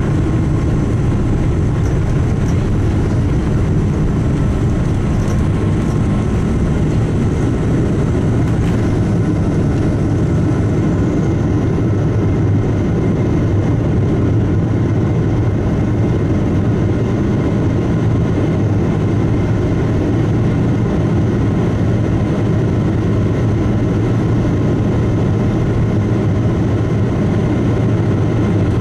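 Boeing 777-200ER's Rolls-Royce Trent 892 turbofans at takeoff thrust, heard inside the cabin over the wing: a loud, steady roar with whining fan tones through the end of the takeoff roll, liftoff and initial climb. A few faint knocks come in the first several seconds while the wheels are still on the runway.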